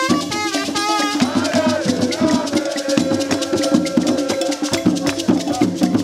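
Background music with a steady percussion rhythm; about a second in, a run of quick melody notes gives way to one long held note.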